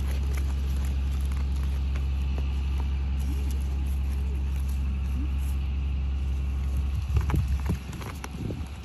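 Steady low engine-like rumble, as from an idling vehicle, that stops near the end, with faint clicks and rustling of cherries being handled.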